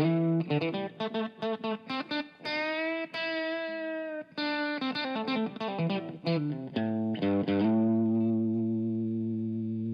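Guitar playing a made-up instrumental tune. Quick picked notes and a held note about three seconds in give way to more fast picking, then a chord near the eight-second mark that is left ringing and slowly fades.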